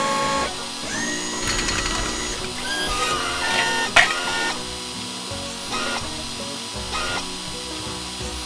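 Background music mixed with whirring, clicking mechanical tool sound effects, with one sharp click about four seconds in.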